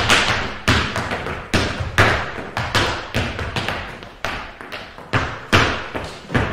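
Boots stamping on a hard studio floor in folklorico dance footwork: heavy thuds at an uneven pace, roughly one or two a second.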